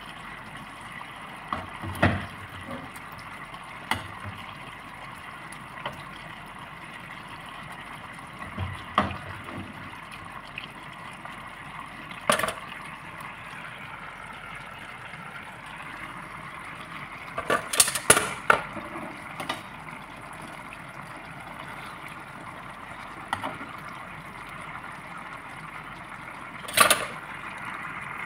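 Thick sauce bubbling in a frying pan around a whole chicken as it simmers and reduces: a steady bubbling hiss with sharp clicks every few seconds, a cluster of them about two-thirds of the way through and a loud one near the end.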